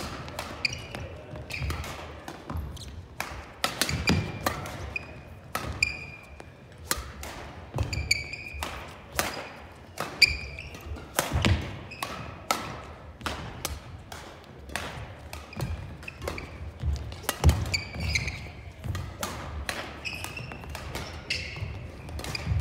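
Badminton rally on a hardwood gym court: sharp racket-on-shuttlecock hits and footfalls throughout, with athletic shoes squeaking on the floor.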